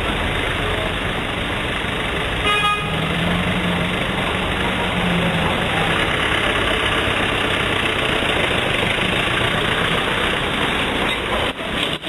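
Steady road-traffic noise from passing vehicles, with one short car-horn toot about two and a half seconds in.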